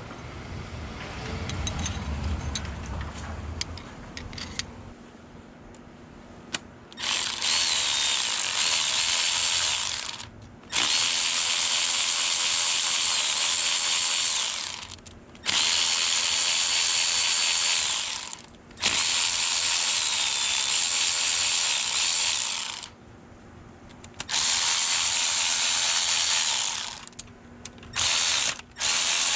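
Handheld power tool, such as a drill-driver or electric ratchet, running in repeated bursts of a few seconds each with a steady whine and short pauses between them. It starts after several seconds of quieter handling clicks.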